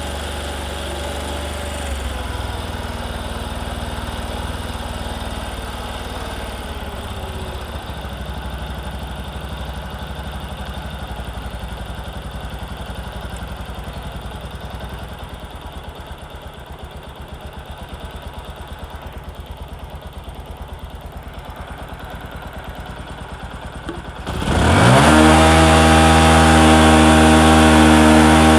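Bajaj Discover 125's single-cylinder four-stroke engine idling steadily while its carburettor fuel setting is adjusted. Near the end the throttle is opened sharply and the engine is held at high revs for a few seconds before the revs fall away.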